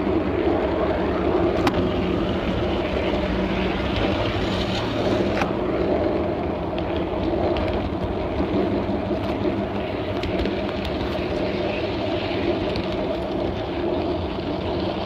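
Garden-scale model train running along its track, heard from on board: a steady mechanical hum with several held tones, broken by a few sharp clicks.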